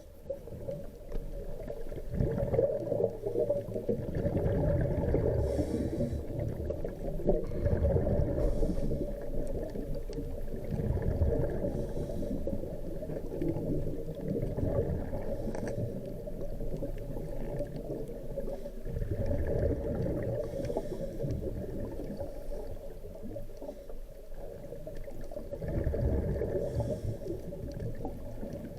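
Muffled underwater noise, crackling and gurgling, with faint scraping every few seconds from parrotfish biting and grazing on coral or rock.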